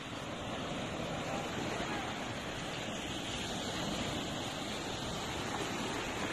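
Ocean surf breaking and washing up on a sandy beach, a steady rushing noise.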